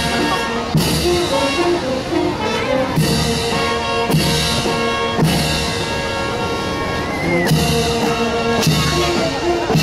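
Brass band playing held brass notes over a bass drum and cymbal crash on each beat, a little slower than one a second.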